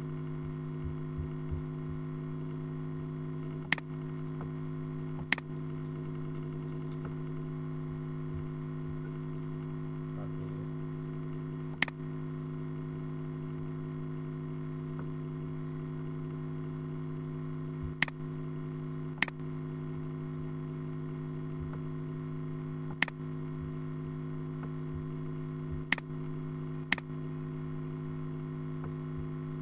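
Computer mouse clicking: eight sharp single clicks at irregular intervals, over a steady low electrical hum.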